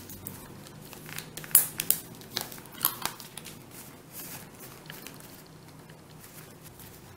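Origami paper crinkling and rustling as fingers press and shape a modular paper mandala, with sharp crackles in the first half, the loudest about one and a half seconds in. The handling gets quieter from about four seconds.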